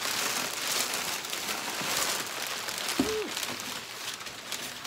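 Paper packaging rustling and crinkling as the contents of a product box are handled and pulled through, with a brief short tone about three seconds in.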